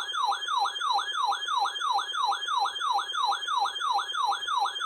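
Electronic siren-like alert tone, a rapid falling sweep repeated about four times a second, played as the attention signal for an emergency weather warning broadcast.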